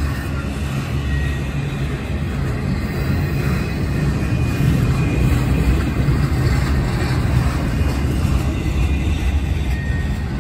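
Double-stack intermodal freight train rolling past close by, a steady rumble of wheels on rail from its container-laden well cars.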